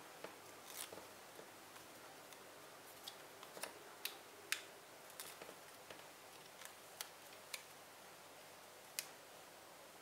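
Paper stickers being peeled from their backing and handled: faint rustling with scattered light sharp clicks and ticks over a steady low hiss.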